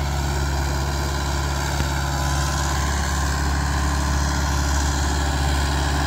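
Mahindra 575 XP Plus tractor's four-cylinder diesel engine running steadily under load as it pulls a cultivator through the soil, its revs holding without dropping.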